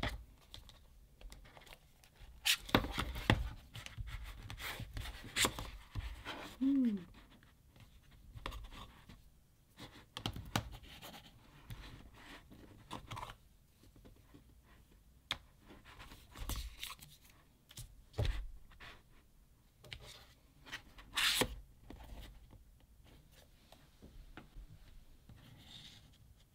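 Cardboard packaging handled during an unboxing: a slide-out box tray pulled open, rustles and scrapes of cardboard and a fabric pouch, and small items tapped down on a desk mat. A brief squeak comes about seven seconds in.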